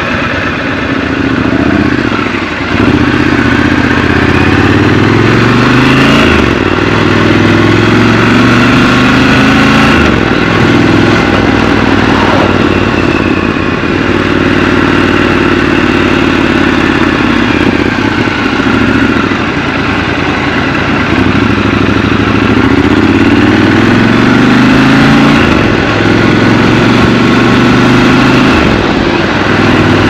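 Triumph Scrambler 1200 XC's parallel-twin engine under way, pulling in repeated climbs in pitch that drop back sharply at each gear change, with steadier cruising stretches between.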